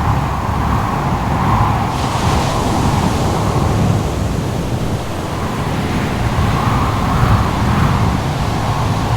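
Howling wind over surf: a steady rushing noise with a deep rumble underneath and a higher howl that swells and eases every few seconds.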